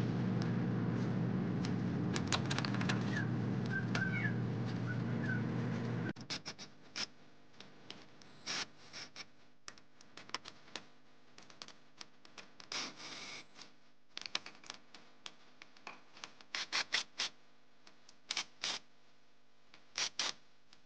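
A steady hum that cuts off abruptly about six seconds in. After it, scattered clicks and scrapes of hand tools working the flange bolts joining a new front driveshaft to the axle flange.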